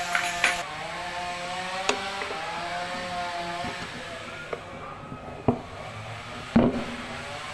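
A motor running with a steady drone and a whine that wavers slowly in pitch, broken by several sharp knocks, the loudest near the end.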